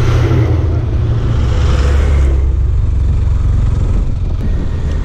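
A motor vehicle under way: a steady low engine drone with a rushing noise of wind and road over it.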